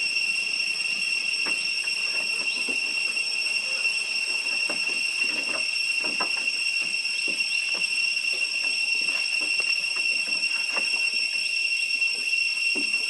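A steady high-pitched drone runs throughout, with scattered light knocks and scuffs from monkeys scrambling about on a wooden roof.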